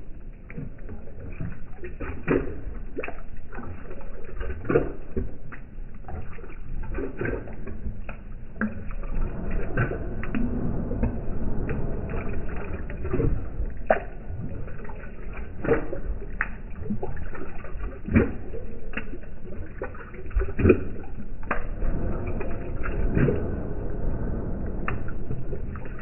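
Labrador retriever lapping water from a glass container, slowed down, with wet splashing slurps and sloshing that come irregularly, every second or two.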